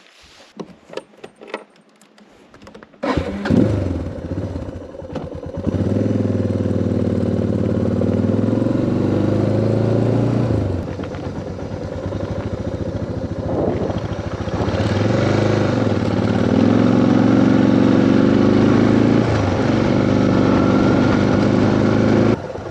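Motorcycle engine started after a few clicks and knocks about three seconds in, then running as the bike rides off, its engine speed rising and falling several times. The sound cuts off abruptly just before the end.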